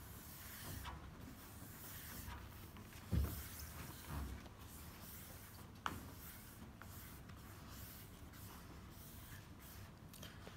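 Faint rubbing and scraping of a plastic squeegee card pressed along self-adhesive smart film on a glass door, with a dull thump about three seconds in and a sharp click near six seconds.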